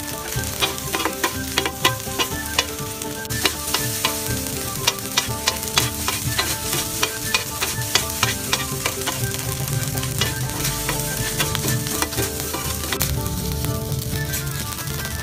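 Shrimp and squid fried rice sizzling on a flat-top griddle while two spatulas scrape and clack against the surface in quick, irregular strokes.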